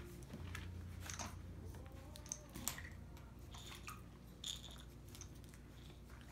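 Barbet puppy chewing and mouthing a hanging plastic ring toy: faint crunching and scattered clicks, with a few sharper clicks.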